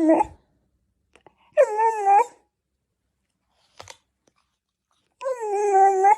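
A dog making two drawn-out, wavering whining calls, one about a second and a half in and one near the end, with a short click between them.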